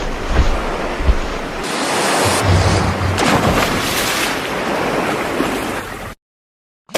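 Ocean surf washing in steadily, then cutting off suddenly about six seconds in.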